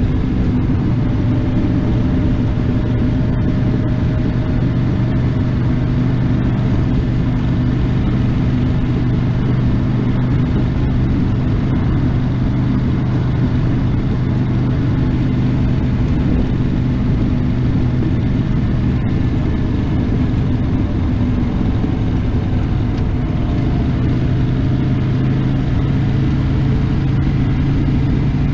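1982 Honda GL500 Interstate's water-cooled V-twin engine running steadily under the rider while cruising along an open road. The engine note rises slightly about three-quarters of the way through.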